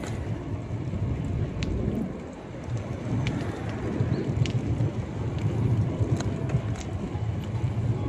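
Strong wind buffeting the microphone as a steady low rumble, with traffic noise and a few faint clicks over it.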